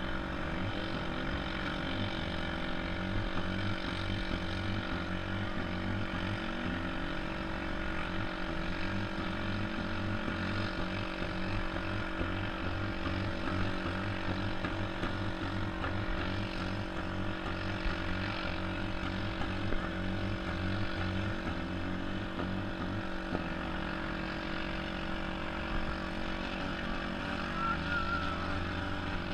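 Demolition derby cars' engines running and revving in a continuous drone, with the revs rising and falling.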